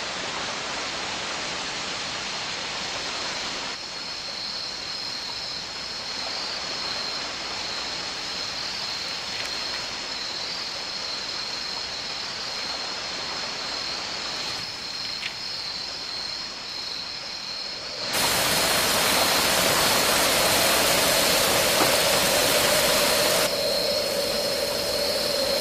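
Steady hiss like rushing water or rain, with a thin high whine held over it. About 18 seconds in the hiss turns louder and brighter and a lower steady hum joins; the hiss eases a little about five seconds later.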